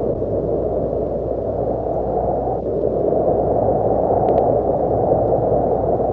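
Steady, low rushing noise with nothing high above it, and two faint quick ticks about four seconds in.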